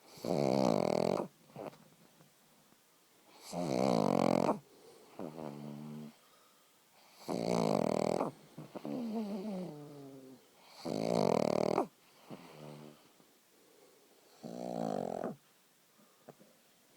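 A pug snoring while asleep: five loud snores, each about a second long and spaced about three and a half seconds apart. Between them come quieter whistling breaths that slide downward in pitch.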